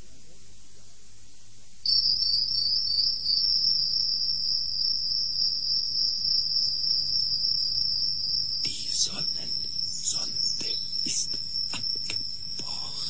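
A shrill, steady, high-pitched chirring starts abruptly about two seconds in, over faint tape hiss. From about nine seconds in, irregular clicks and crackles sound over it.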